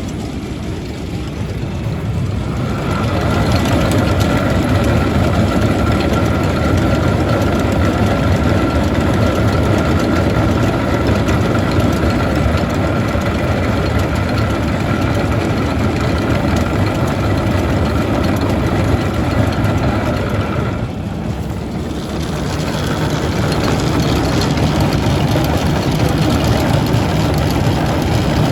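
Farm tractor engine running steadily with machinery working behind it, a steady high whine over the engine drone. The sound grows louder about two and a half seconds in, eases briefly about twenty seconds in as the whine drops out, then picks up again.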